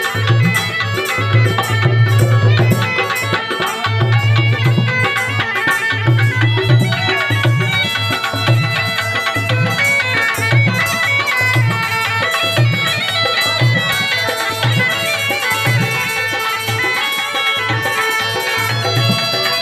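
Been (pungi), the snake charmer's gourd reed pipe, playing a folk melody over its steady drone, with a drum beating a rhythm underneath.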